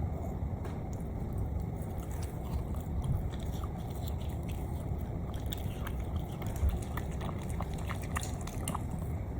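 A dog chewing and smacking as it eats soft fresh food: irregular small wet clicks over a steady low rumble.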